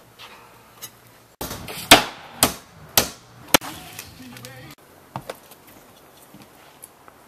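Hammer blows: four sharp, ringing strikes about half a second apart, followed a little later by two lighter knocks.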